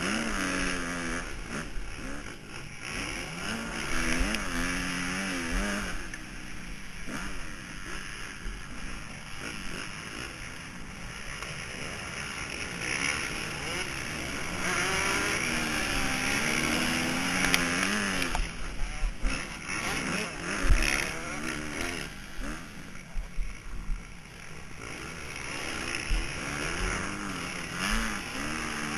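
Motocross bike engine revving up and down as the rider accelerates and shifts through the gears, heard through a helmet-mounted camera with a steady rush of wind. A few sharp knocks come about two-thirds of the way through.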